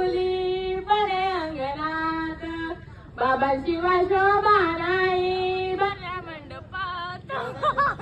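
A woman singing a Marathi folk song without accompaniment, holding long, bending notes, with a short pause for breath about three seconds in.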